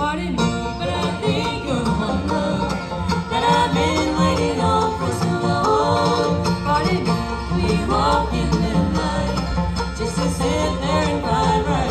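Bluegrass band playing live, with a singer.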